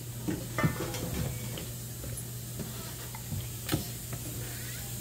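A few light, separate knocks and taps as a knife and a raw chicken are handled on a wooden chopping board, the sharpest one about three-quarters of the way in, over a steady low hum.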